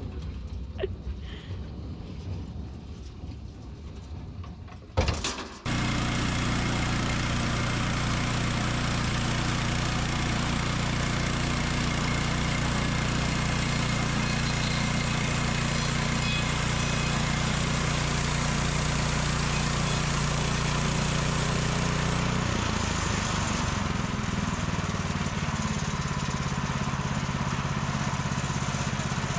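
Small gasoline engine of a portable sawmill running steadily. It comes in abruptly after a sharp knock about five seconds in, and its tone shifts about three-quarters of the way through.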